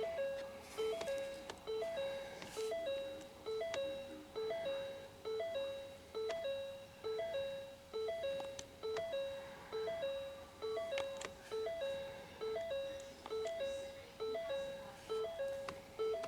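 A repeating electronic chime: a short figure of a few stepped tones that loops evenly, a little more than once a second.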